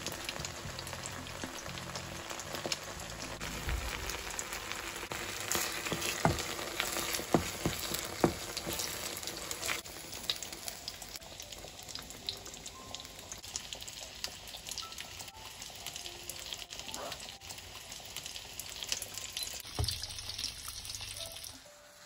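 A red roasted-pepper and tomato sauce sizzling and spitting in a hot frying pan as a wooden spoon works it. The crackling is thickest in the first ten seconds, then settles to a quieter sizzle, and cuts off just before the end.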